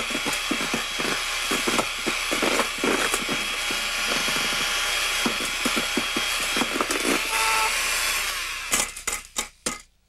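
Electric hand mixer running with its beaters in a metal bowl of cake batter: a steady motor whine with many small clicks. It winds down about eight and a half seconds in, followed by a few sharp knocks.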